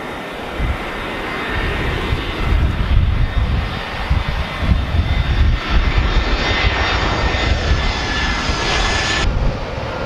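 Twin-engine jet airliners on short final passing low overhead, their turbofan engines running at approach power. The sound is a steady high engine whine over a heavy low rumble that swells a second or two in. The high whine cuts off abruptly near the end.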